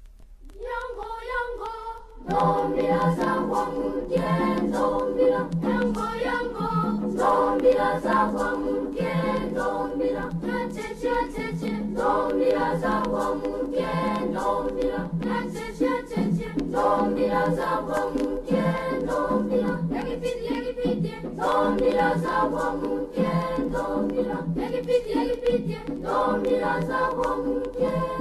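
Choir singing as background music. A single voice opens, and the full choir comes in about two seconds in and carries on.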